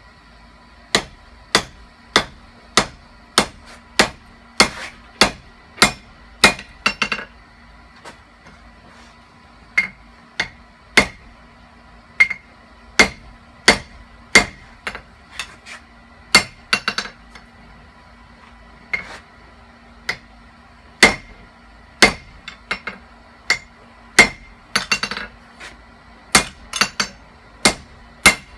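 Hammer blows on leaf-spring steel over an anvil as a knife blade is forged: sharp metallic strikes in runs of about two a second, each with a brief ring, broken twice by short pauses.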